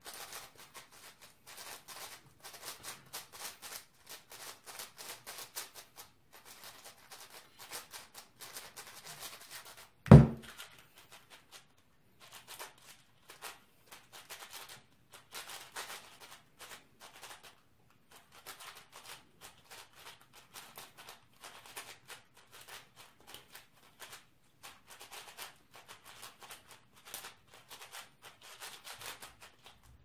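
Plastic speed cubes being turned fast by hand: a steady clatter of rapid layer-turn clicks. One loud thud about ten seconds in, as a solved cube is set down on the desk.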